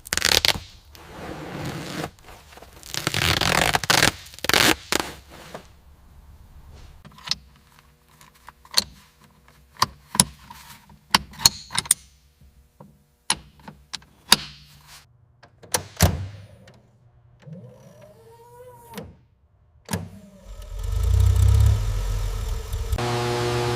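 Brittle plastic clips and wiring-harness connectors on an old car being worked loose by hand. First comes loud scraping and rustling, then a string of sharp clicks and knocks. Near the end there is a short wavering squeak, then a low rumble.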